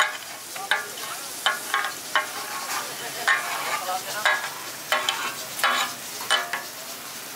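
Flat steel spatulas clanking and scraping on a large iron griddle (tawa) as minced meat is worked and gathered, about a dozen ringing strikes at an uneven pace, over the steady hiss of the meat sizzling in oil.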